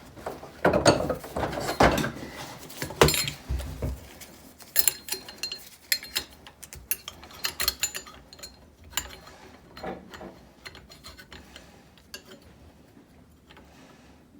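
Irregular clicks, knocks and small rattles of plastic and metal parts being handled during reassembly of a multi-tool. They are busiest and loudest in the first four seconds, then thin out to sparse faint ticks.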